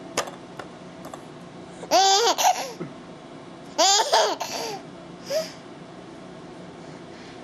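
A young child's high-pitched squealing, laughing vocal sounds: two loud bursts with wavering pitch, about two and four seconds in, and a short faint one a little later.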